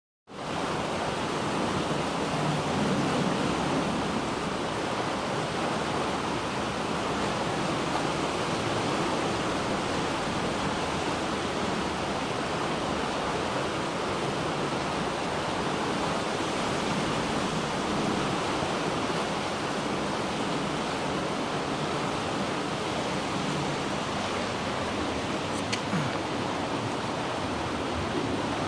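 Creek in flood: fast floodwater rushing with a steady, even roar, with a couple of faint clicks near the end.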